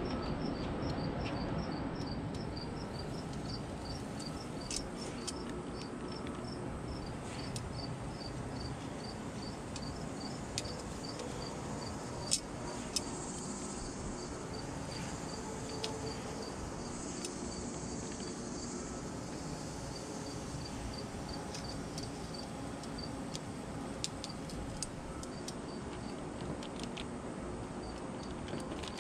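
Insect chirping in a steady rhythm of about three high chirps a second over a steady outdoor background, with a few sharp light clicks of metal tongs handling chicken wings.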